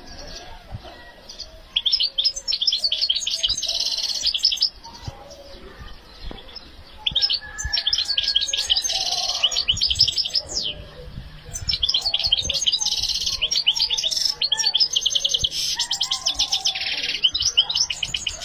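European goldfinch singing: four long phrases of rapid, high twittering notes with short pauses between them. The song of a bird in full breeding condition ("con mucho celo").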